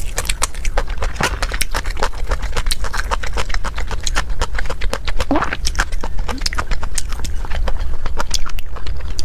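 Close-miked eating: a quick, irregular run of crisp wet clicks from chewing and crunching food in the mouth, with a steady low hum underneath.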